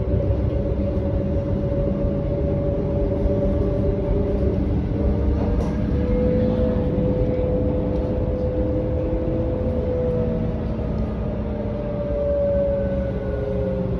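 Berlin U-Bahn train heard from inside the car while running, with the wheels rumbling on the track and the traction motors giving several steady whining tones. Near the end the motor whine starts to fall in pitch as the train slows.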